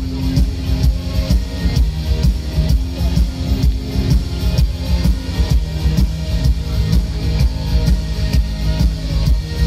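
Live rock band playing an instrumental passage between sung lines: a drum kit keeps a steady beat under bass and electric guitars.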